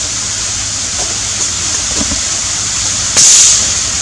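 Air rifle firing a line-tethered fishing spear into shallow water: one sharp shot about three seconds in, followed by a short hiss, over a steady background hiss.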